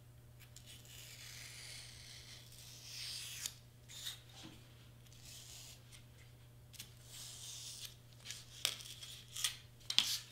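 Faint scratching of a pen tracing around a cardstock cutout onto the board beneath, then scattered taps and rustles as the paper pieces are handled, sharpest near the end.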